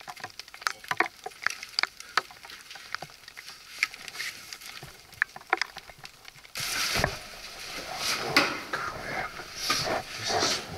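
Scattered light ticks of falling snow pellets or sleet hitting close to the microphone. About two-thirds of the way in, this gives way to a sudden louder rustling and scraping.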